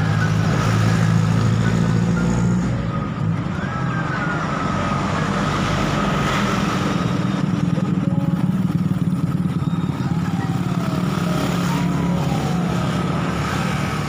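Small motor vehicles' engines running: a motor scooter rides in and a Suzuki van drives up and idles, a steady low engine hum.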